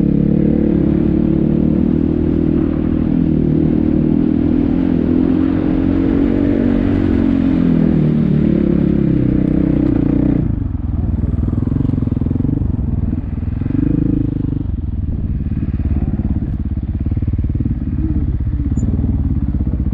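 Dirt bike engine working up a rocky trail, the revs rising and falling under load. About halfway through it drops back to a lower, steadier running as the bike slows to a stop.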